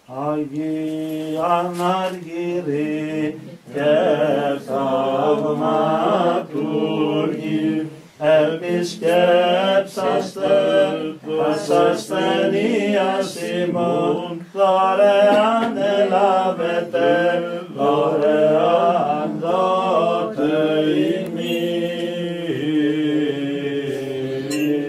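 Greek Orthodox Byzantine chant: voices sing a winding melody over a steady, held low drone note.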